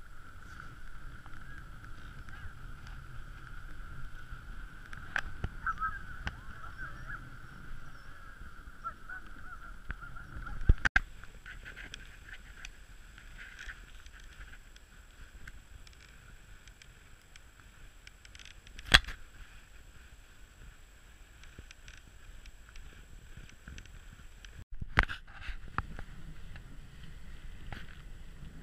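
Wooden dog sled's runners sliding over snow with a steady scraping hiss. Three sharp knocks, spread through, are the sled jolting over bumps.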